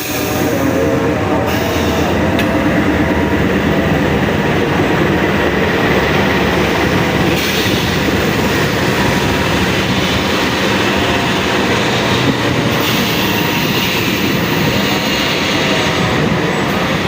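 A train rolling past on the rails: a loud, steady rumble of wheels and carriages.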